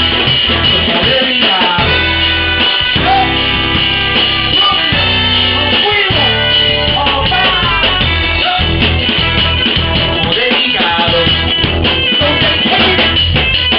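Live band playing a salsa and hip-hop song: drum kit, trumpets, violin and electric guitar together, with a vocalist on microphone over them.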